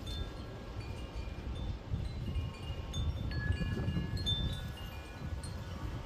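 Wind chimes ringing in the breeze, scattered high notes struck at random, one note ringing on for a couple of seconds about halfway through. A steady low rumble of wind on the microphone sits under them and is the loudest part.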